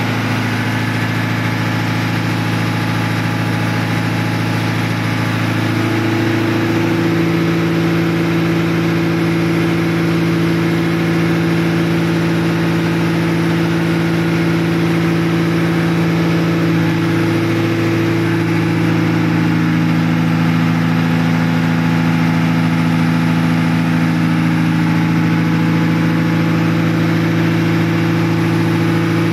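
Tugboat engine-room diesel machinery, including a diesel generator set, running steadily: a loud, constant drone with a low hum that shifts slightly in pitch a couple of times.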